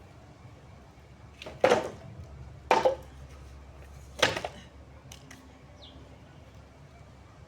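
Firewood being handled for a campfire: three loud, sharp cracks about a second apart, followed by two faint clicks.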